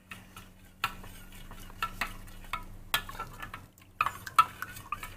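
Metal spoon stirring liquid grape Jell-O mix in a plastic measuring jug, clinking against the sides about once a second, with a quick cluster of clinks about four seconds in.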